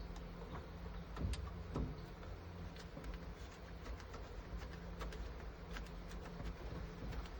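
Scattered light clicks and taps over a low steady hum, with no motor run standing out.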